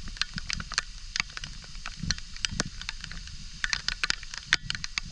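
Waterfall spray and wind at the microphone: a steady low rumble and hiss with many irregular sharp crackles and taps close to the mic.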